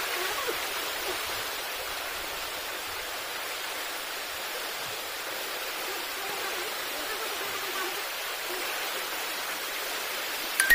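Fast-flowing floodwater rushing down a street: a steady, even rush of water.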